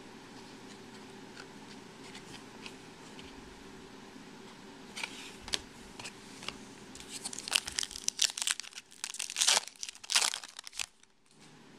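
A foil trading-card pack wrapper being torn open and crinkled by hand. It starts as a few scattered crackles about five seconds in and grows into a dense run of sharp crinkles near the end, which then stops abruptly.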